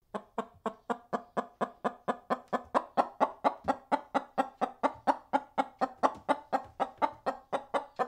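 Hen clucking in a fast, even run of short clucks, about four a second, which stop abruptly near the end.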